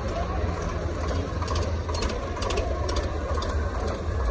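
A vehicle engine running steadily at low speed with a rhythmic knock, with a few light clicks or rattles about halfway through.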